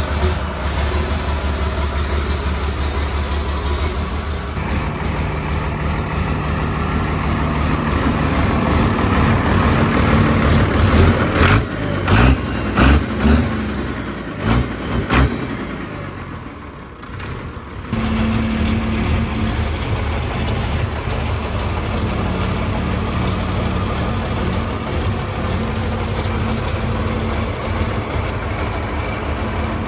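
The tractor puller's Ford diesel engine, which the owner takes for a 380 Ford Cargo engine with a big Bosch injector pump, running at idle. About midway it is revved in four short blips, drops away briefly, then settles back to a steady idle.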